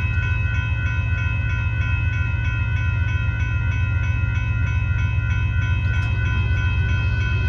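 Railroad grade-crossing warning bell ringing in a fast, steady, even rhythm while the crossing gates are down, over a steady low rumble.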